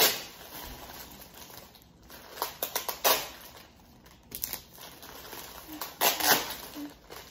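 Packaging rustling and crinkling as it is handled, in uneven bursts: a sharp crackle at the start, a cluster of crackles about two and a half to three seconds in, and another burst about six seconds in.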